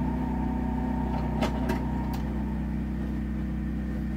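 A steady machine hum with three short, sharp clicks about a second and a half to two seconds in, from a shotgun shell being handled at a reloading press.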